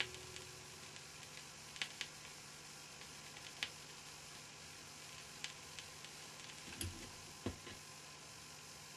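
Vinyl record playing on a Bang & Olufsen Beocenter 7700 turntable with no music in the groove: steady surface hiss with scattered crackles and pops, the crackle of a well-worn test record. The last notes of music die away in the first second, and a dull low thump comes about seven and a half seconds in.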